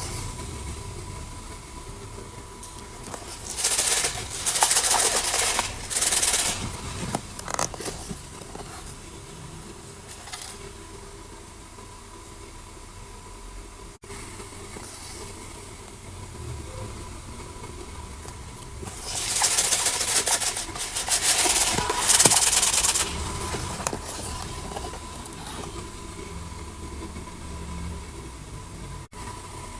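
Plastic blind-bag packaging crinkling as it is handled and torn open, in two bouts a quarter of a minute apart.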